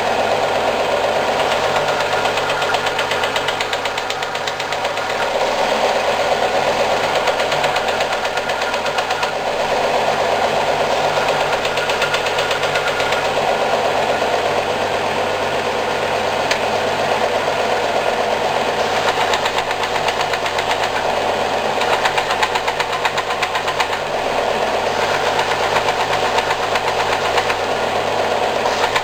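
Combination belt and disc sander running steadily, with pine pieces held against its moving belt for shaping. A constant motor hum sits under the gritty hiss of the abrasive on the wood.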